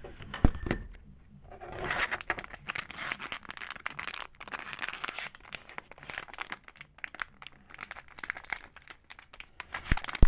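Plastic packaging crinkling and rustling as it is opened and unwrapped by hand. There is a thump about half a second in and a sharp knock near the end.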